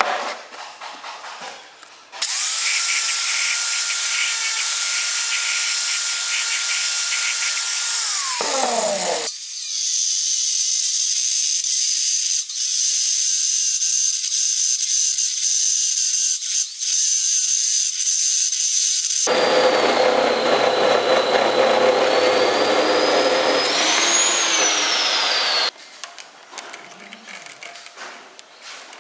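Abrasive chop saw cutting through round steel bar, in loud, steady runs that start and stop abruptly. One run ends with the motor winding down in falling pitch. Quieter clinks of steel parts being handled come at the start and near the end.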